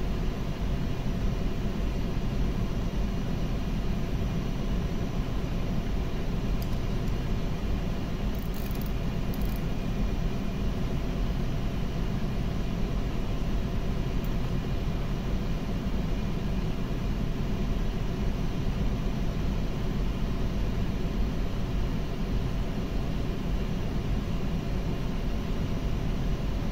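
Steady drone of running machinery, heavy and low with several constant tones over it, unchanging throughout.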